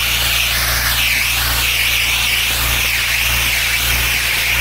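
Pressure washer running, its water jet spraying with a steady loud hiss that wavers up and down about once a second, over the steady low hum of the machine.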